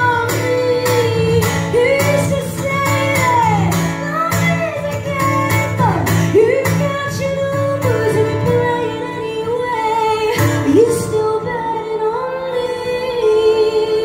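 Live song: a woman singing long notes that slide up and down, over a strummed acoustic guitar and a second guitar.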